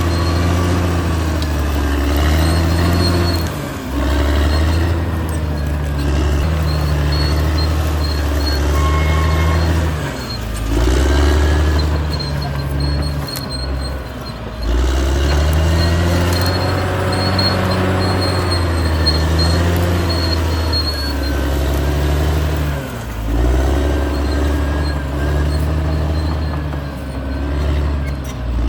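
Caterpillar D6R XL bulldozer's diesel engine working hard, its pitch dropping and rising again every few seconds as the load comes and goes. A faint high whine comes and goes over it.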